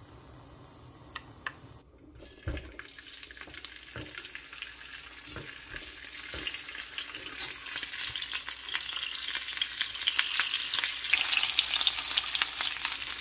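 Rice-cake and sausage skewers frying in hot oil in a square nonstick pan. The oil starts sizzling about two seconds in and grows steadily louder, with a few light knocks as the skewers are laid into the pan.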